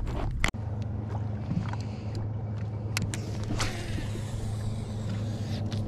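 Steady low hum of a bass boat's motor. Near the middle come a few sharp clicks, then a hiss lasting about two seconds as a rod is cast and line runs out.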